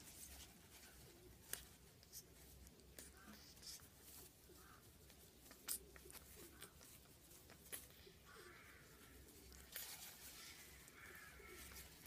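Near silence with a few faint scattered clicks and soft rustles: a young pigeon feeding with its beak pushed into a slit rubber glove-fingertip teat on a feeding syringe.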